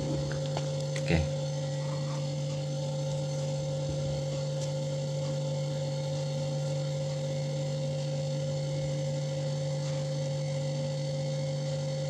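Toshiba two-door refrigerator running its compressor: a steady electrical hum with a higher tone over it, and a light knock about a second in.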